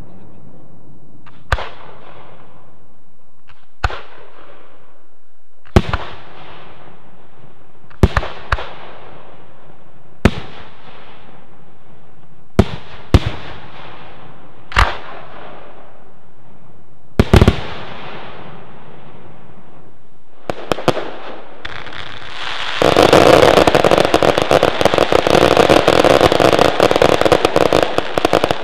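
Firework shells bursting one at a time, a sharp bang roughly every two seconds, each followed by a short fading crackle. About 23 seconds in, a ground-level firework battery starts firing, a loud, dense rattle of rapid crackling reports that keeps going.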